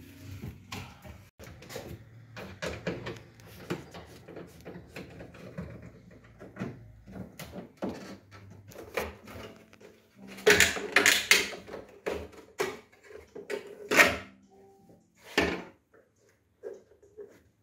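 Clicks, knocks and light rattling of hands and a screwdriver working on a car tailgate's plastic trim and fittings. A loud burst of clattering comes about ten and a half seconds in, then single sharp knocks around fourteen and fifteen seconds.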